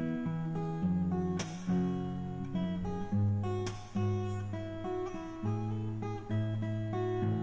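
Background music on acoustic guitar: strummed chords with held notes, changing every second or so.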